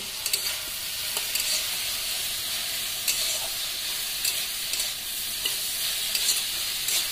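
Chopped taro stems sizzling in oil in a wok while a metal spatula stirs them, its scrapes and taps against the pan coming roughly once a second over a steady hiss.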